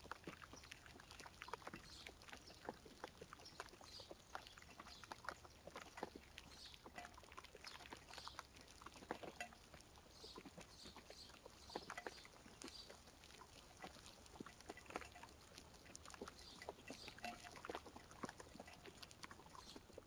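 Raindrops ticking faintly and irregularly on dead leaves and the camera close by, many small clicks a second.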